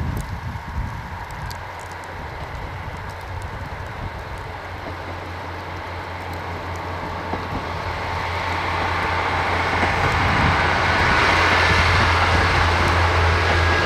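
Diesel train approaching, its sound growing steadily louder from about eight seconds in, over a steady low engine drone.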